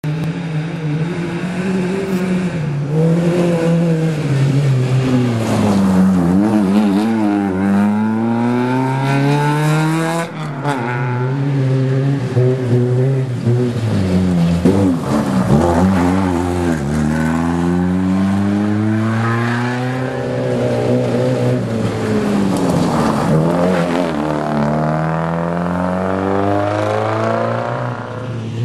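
Race car engines on a dirt course, revving up and down over and over, their pitch climbing as they accelerate and dropping off again several times.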